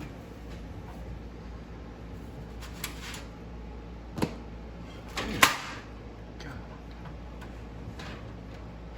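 A few short clicks and knocks of hardware being handled during PC assembly, the loudest a double knock about five and a half seconds in, over a steady low hum.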